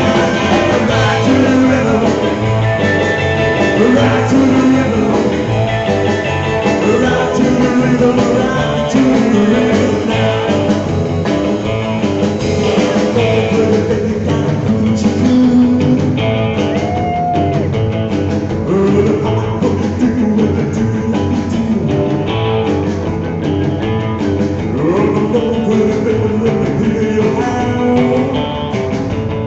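Live rockabilly band playing: electric guitar over a drum kit, with a steady driving beat.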